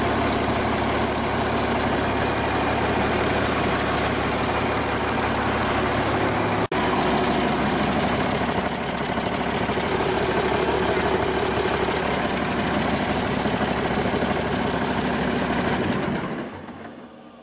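Cummins 8.3-litre inline-six diesel engine running steadily, then shut off near the end, its sound dying away over about a second.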